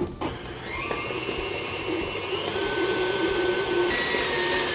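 Electric stand mixer switched on with a click, its motor whine rising as it speeds up and then running steadily. Its flat beater is mixing a thick cream-cheese and whipped-topping filling in a glass bowl.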